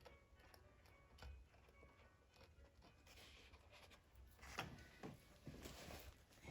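Faint crinkling and scratching from handwork on the Torah's old tabs, with a few small clicks. It grows a little about halfway through.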